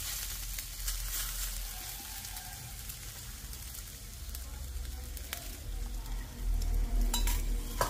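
Oil sizzling steadily under a nest of Maggi noodles frying on a non-stick tawa, with a few sharp clicks of a steel spoon and bowl as an egg is added, the last near the end.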